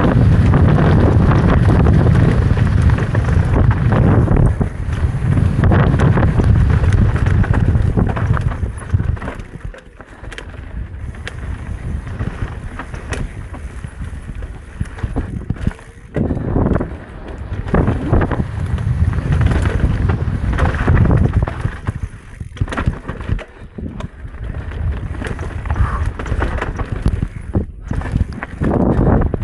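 Electric mountain bike descending a rough dirt trail at speed: wind buffeting the microphone, tyres rolling over dirt and roots, and the bike rattling over bumps. The wind rumble is heaviest for the first several seconds, then eases into broken bursts of clatter.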